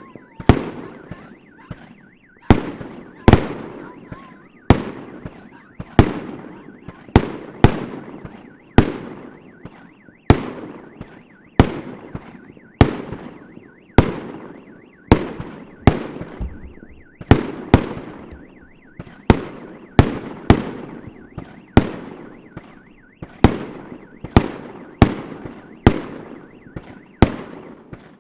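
Fireworks going off in a steady barrage: a sharp bang about once a second, each trailing away in an echo before the next.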